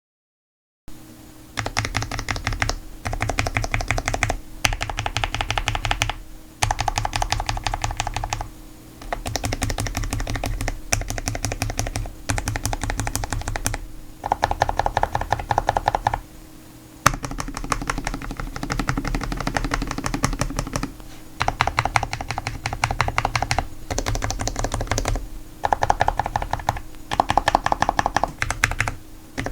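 Cherry Xtrfy MX 10.1 LP low-profile mechanical keyboard being typed on, starting about a second in: fast runs of clicky keystrokes a second or two long, with brief pauses between runs.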